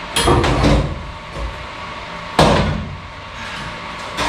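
Clanks and knocks of cut steel roll-cage tubing being worked loose inside a car's cabin: a clattering run of knocks near the start and one sharp bang about two and a half seconds in.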